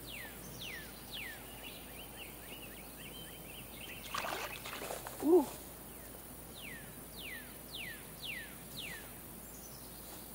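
A bird calling runs of quick whistles that each slide downward, about three a second, one run near the start and another in the second half, over steady outdoor background noise. A short, louder sound breaks in about halfway through.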